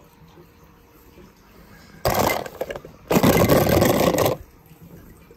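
Two short bursts of rushing, splashing noise, about a second each, the second louder, as toy cars drop into a pool of water.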